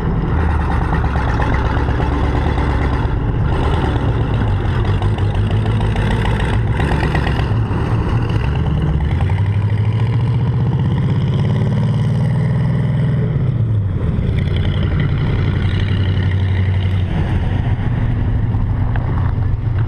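Engine of a pickup truck converted to run on tank tracks, running steadily as it drives around. Its pitch rises about halfway through and falls back a few seconds later.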